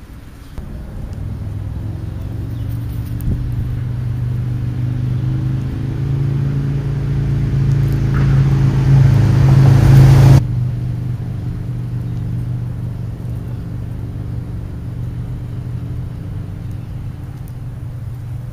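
A steady low engine hum that grows gradually louder, drops off suddenly about ten seconds in, and then keeps going at a lower level.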